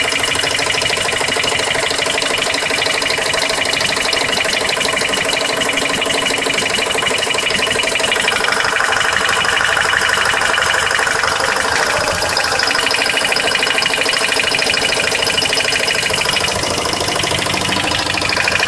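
Car engine running with a rapid, steady ticking, which the owner places somewhere around the oil pan.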